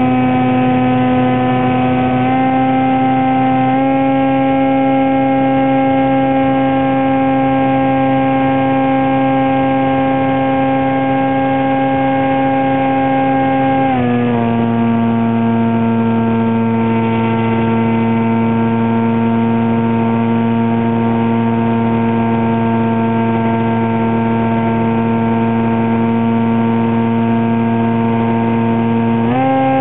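Radio-controlled foam airplane's motor and propeller running at a steady high throttle, heard from the camera aboard the plane. The pitch drops a little about halfway through as the throttle is eased back, and rises again near the end.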